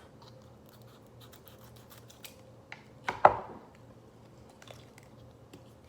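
An MRE cheese spread pouch being opened: scattered small clicks and rustles of handling, with one sharp, loud click about three seconds in.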